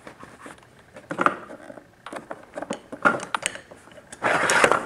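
Handling noise as a camcorder is set down on the carpet, then scattered light clicks, knocks and rustling from things being moved, with a louder rustling scrape a little after four seconds in.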